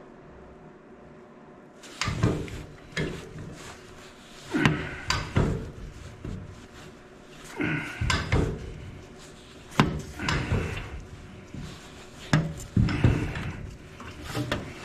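Irregular metal knocks and clanks of a wrench working a threaded gas pipe fitting as it is turned tight, starting about two seconds in and coming roughly once or twice a second.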